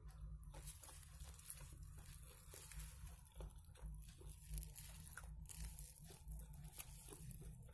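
Faint, irregular crackling and crunching from a nori-wrapped onigiri as it is handled and eaten, over a steady low hum.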